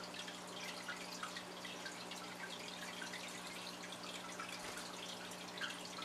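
Pet budgies chattering softly: a scatter of quiet short chirps and clicks, over a steady low hum.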